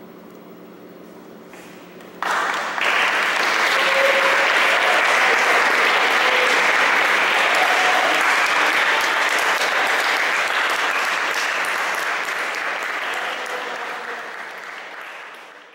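A steady drone of held tones from the ensemble playing the notes A and E. About two seconds in, loud audience applause breaks out, swamping the drone, then fades near the end and cuts off.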